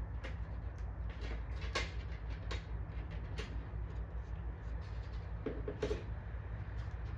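Irregular light clicks and knocks of parts being handled and set down, over a steady low hum.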